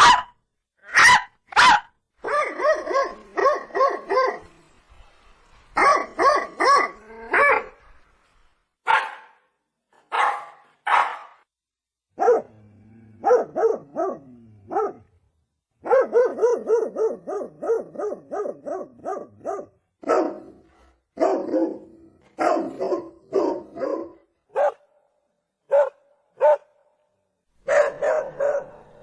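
Dog barking in a string of separate takes: single sharp barks and fast runs of barks, about four or five a second, with short silent pauses between them.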